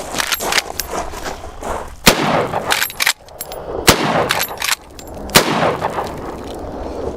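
Marlin lever-action .30-30 rifle firing three loud shots about a second and a half apart, each with a ringing echo. Smaller clicks and knocks come between the shots.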